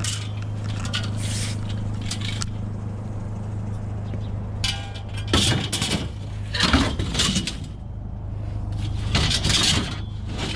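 A vehicle idling with a steady low hum, under clattering scrapes and clanks of scrap metal being handled, loudest about halfway through and again near the end.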